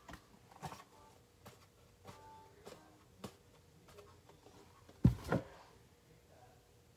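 Handling noises from a plastic glue bottle: scattered light clicks and taps, with a louder thump and a second knock about five seconds in.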